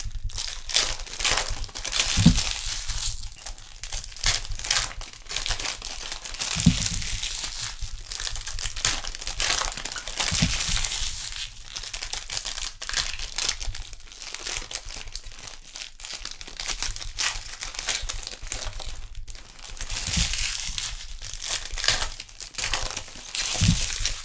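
Trading-card pack wrappers being torn open and crinkled by hand, a dense run of crackling and ripping, with a few dull knocks against the table.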